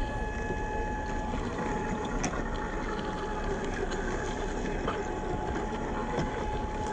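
Brushed 550 electric motor and geared drivetrain of an HG P408 RC crawler running at a steady speed: a constant whine over a noisy rumble, with a few sharp clicks.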